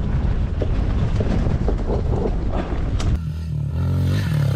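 Small 110cc four-stroke dirt bike engine running as the bike is ridden down a rough dirt trail, heard from the onboard camera with a constant jumble of bumps and rattles. About three seconds in the sound cuts abruptly to a steadier, cleaner engine note.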